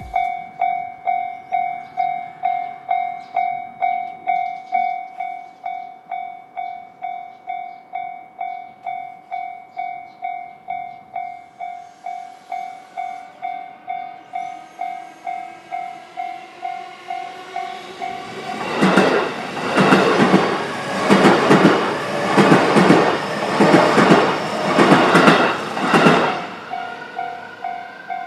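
Japanese level-crossing warning bell ringing steadily at about two strokes a second. About two-thirds of the way in, an electric train passes over the crossing for about eight seconds, its wheels clattering rhythmically over the rail joints and drowning out the bell, which is heard again as the train clears.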